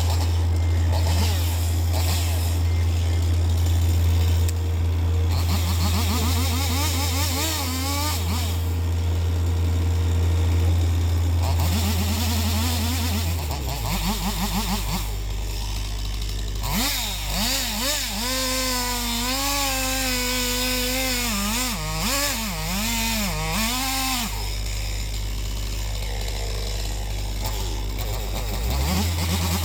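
John Deere 60G excavator's Yanmar diesel engine running steadily, dropping to a lower speed about halfway through and picking back up near the end, with a whine that rises and falls over it in the second half.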